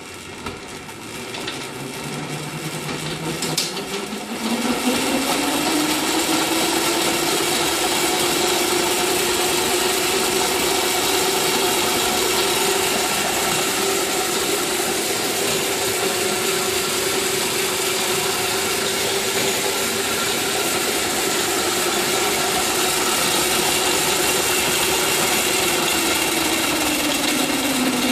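Treadmill DC motor in an electric quad bike conversion, run at 36 volts through a speed controller, turning the drive with the wheels off the ground. A whine rises as the potentiometer is turned up a few seconds in, holds steady over a rushing hiss, and falls away near the end. This is a first test run without load.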